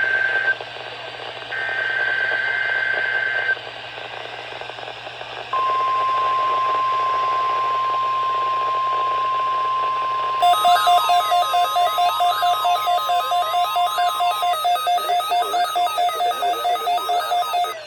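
NOAA Weather Radio test broadcast over radio hiss: two warbling bursts of EAS/SAME header data tones, a pause, then the steady 1050 Hz weather alert tone held for about nine seconds. About five seconds into the tone, a rapidly pulsing two-tone alarm beep joins at about three to four beeps a second and keeps going after the steady tone stops.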